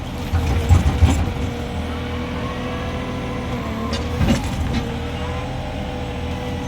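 Mini excavator engine running steadily, with a whining tone that dips and rises as the machine is worked and a few sharp metallic clunks about a second in and again around four seconds in.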